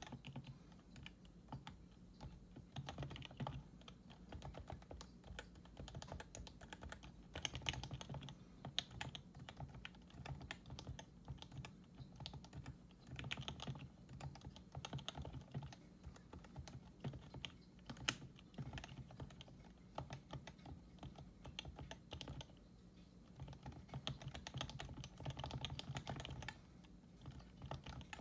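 Typing on a Happy Hacking Keyboard Professional 2 whose Topre electrostatic capacitive switches are lubricated with Krytox 105 oil: a steady, fairly soft run of quick keystrokes, with one louder click about two-thirds of the way in and a brief lull soon after.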